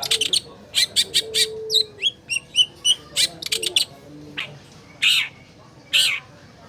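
Long-tailed shrike (cendet) singing: a fast run of short, sharp, high chirps and whistles, then from about five seconds in, harsher calls about once a second.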